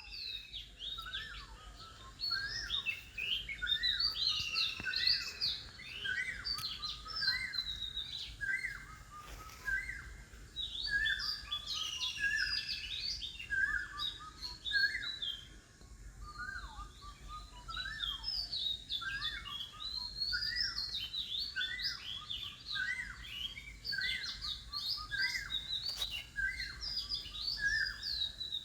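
Many birds chirping and singing together, a dense, unbroken chorus of short repeated calls and quick sliding notes.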